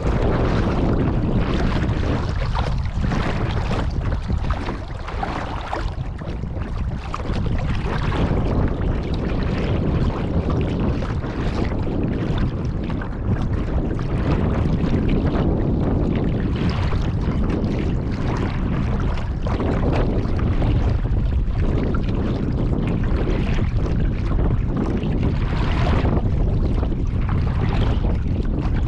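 Kayak on the water: wind buffeting the microphone in a steady low rumble, with water splashing and sloshing around the boat in irregular surges every second or two.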